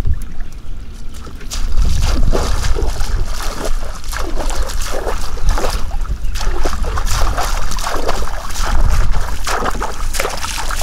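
Water splashing and sloshing in irregular bursts that thicken about a second and a half in, over a steady rumble of wind on the microphone.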